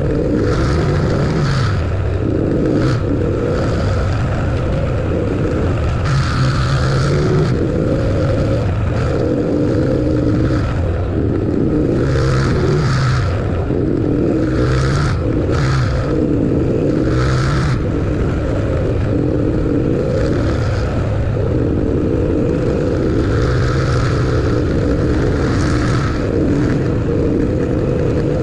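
A vehicle driving on a road: steady engine and tyre noise with a low rumble, and brief swells of higher hiss now and then.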